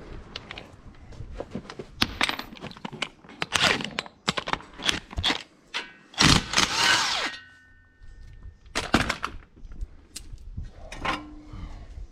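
Cordless drill-driver running in a short burst about six seconds in, undoing a bolt at the exhaust mount of a small single-cylinder tractor engine. Irregular metal clinks and clanks of tools and exhaust parts being handled come before and after it.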